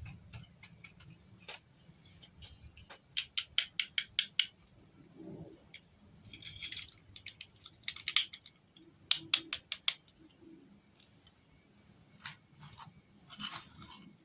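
Handling of plastic toy packaging and doll pieces: sharp small clicks, with a quick run of about eight a few seconds in and another cluster around nine seconds, between short bursts of crinkling.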